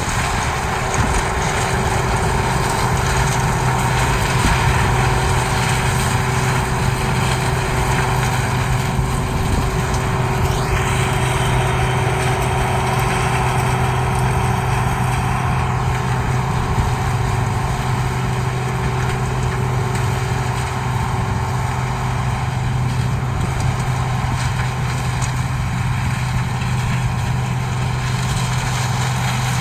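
CLAAS Mega 204 combine harvester running steadily, a constant low engine hum with an even mechanical noise over it.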